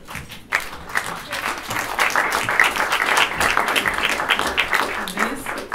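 Audience applauding, starting about half a second in and dying down near the end.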